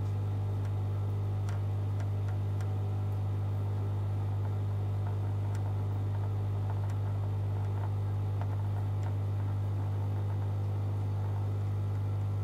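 Aquarium equipment humming steadily at a low pitch, with a few faint ticks scattered over it.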